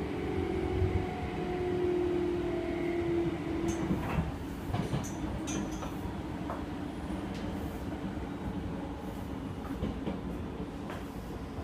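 Meitetsu 5000 series electric train heard from inside a passenger car at speed: the traction motor whine falls slightly in pitch and stops about three and a half seconds in, then the wheels run on with a few clacks over the rails and a steady rumble.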